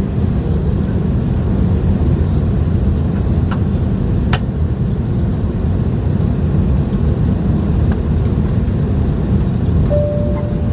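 Steady low rumble of cabin noise inside an Airbus A321 moving slowly on the apron, the air-conditioning and engine noise heard through the cabin. A few light clicks come about three and four seconds in, and a steady tone comes in near the end.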